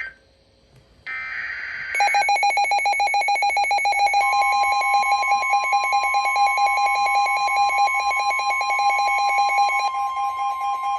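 A weather radio alert. About a second in comes a brief burst of SAME header data, then the receiver's own rapid high-pitched beeping alarm starts. About two seconds later the steady 1050 Hz warning alarm tone of the NOAA Weather Radio broadcast joins it, signalling a warning about to be read.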